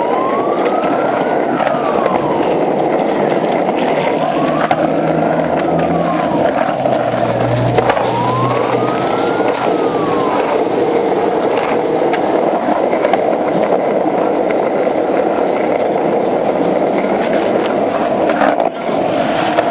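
Skateboard wheels rolling over a concrete sidewalk, a steady rumble broken by short clacks over the pavement joints. A fainter tone rises and falls three times in the first half.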